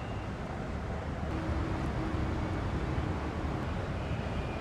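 Steady low rumble of outdoor background noise, with a faint steady hum through the middle of it.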